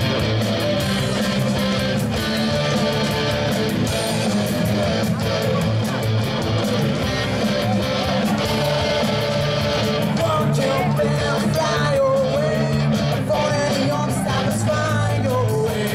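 Live rock band playing: electric guitars, bass guitar and drum kit, loud and steady, with a lead vocalist singing from about ten seconds in.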